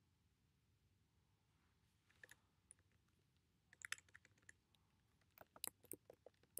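Light clicks and taps at a laptop's keys and trackpad, in scattered quick runs: a brief cluster about two seconds in, a denser run near four seconds, and another toward the end.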